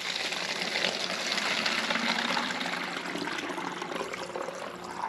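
Filtered water running from the spigot of a stainless steel gravity-fed water filter into a plastic bottle, a steady rushing pour whose pitch rises slightly as the bottle fills.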